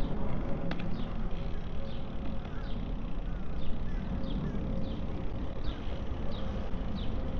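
Wind rumbling over the microphone of a camera riding along on a moving bicycle, with a bird calling steadily throughout, a short falling chirp about every three-quarters of a second.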